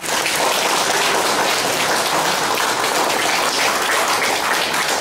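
Audience applause, many hands clapping, starting abruptly and holding steady.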